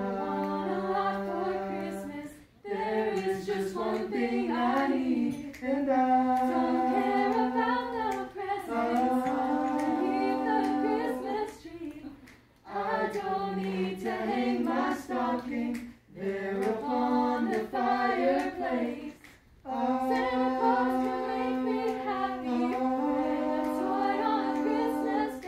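A small mixed group of carolers singing a cappella in harmony: long held notes in phrases, with brief breaks between them.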